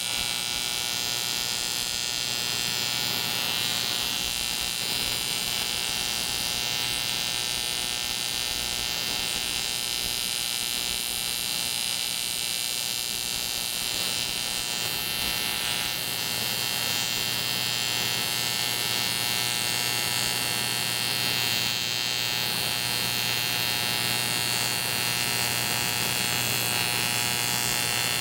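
AC TIG welding arc on the aluminum knucklehead engine case, a steady electric buzz with a low mains hum underneath, unbroken throughout.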